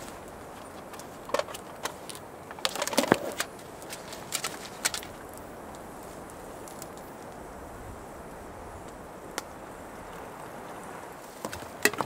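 Steady rush of wind through the forest, with scattered clicks and knocks from camp gear and firewood being handled. The knocks come in a cluster about three seconds in, a few more a second or two later, and again near the end.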